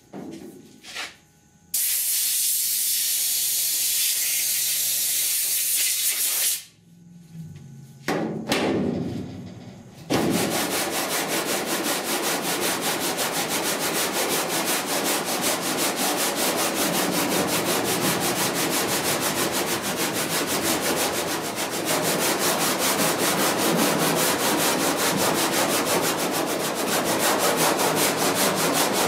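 Coarse sandpaper, by the sound of it the 80 grit just chosen, rubbed by hand over body filler on a pickup cab's sheet-metal panel in fast, steady strokes, feathering the edges of the filler. It starts about ten seconds in, after a steady hiss of about five seconds and a few scattered handling sounds.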